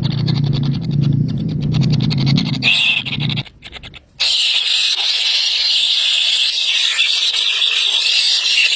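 Scraping and handling noise, then, about four seconds in, a steady stream of high-pitched begging cheeps from hungry nestling birds.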